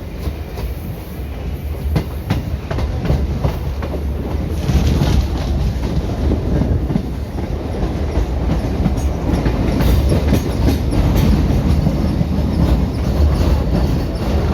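Indian Railways ICF passenger coach running along the track: a steady low rumble with the clatter and clicks of wheels over rail joints, growing somewhat louder about a third of the way in.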